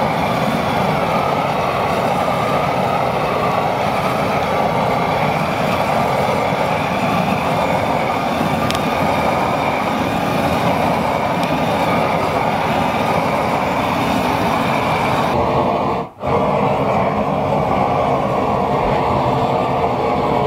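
Steady drone of an electric power sprayer's motor running as boards are sprayed, with a brief break about three-quarters of the way through.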